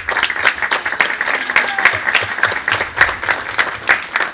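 Small audience applauding: many hands clapping quickly and irregularly.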